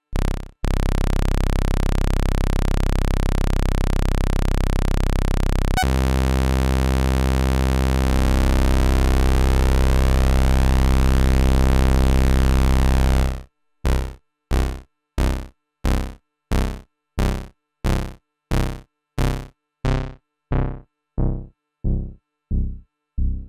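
Roland System-500 analogue modular synthesizer playing a loud held oscillator tone whose pitch and timbre change sharply about six seconds in. It then switches to a run of short, evenly spaced sequenced notes, about one and a half a second, that grow steadily duller toward the end.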